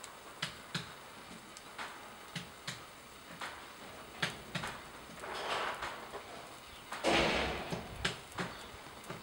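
Wood fire crackling under a simmering paella pan: scattered sharp pops, with two rushing swells of noise about five and seven seconds in, the second the loudest.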